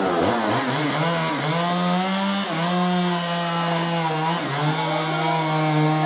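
Two-stroke chainsaw running at high revs on a fallen tree trunk: the engine pitch rises near the start, then holds high with brief dips about a second and a half and four and a half seconds in, as the chain loads in the wood.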